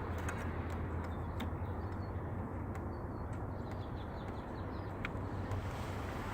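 A steady low mechanical hum with a few light clicks, and faint bird chirps.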